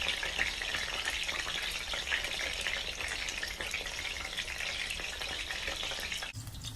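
Frozen pork pot stickers frying in hot oil in a pan, just flipped onto their second side: a steady sizzle with fine popping crackle. It stops abruptly near the end.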